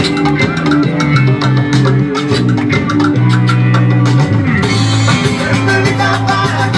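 Live Latin rock band playing: drum kit keeping a steady beat under electric guitar. The sound grows brighter about two-thirds of the way through.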